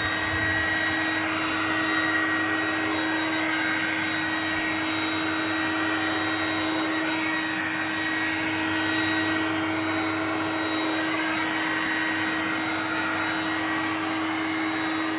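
Vacuboy handheld vacuum cleaner, switched to 230 V mains, running steadily at full power as its carpet brush is worked over a carpet: a steady motor whine over the rush of air.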